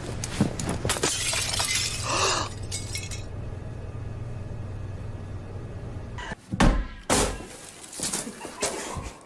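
A crash with something shattering, loudest between about one and two and a half seconds in, over a steady low hum. Several loud knocks follow near the end.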